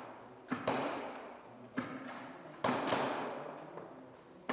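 Airsoft guns firing in a run of separate shots, each a sharp crack followed by a long echoing decay. There are about six shots, two of them close pairs.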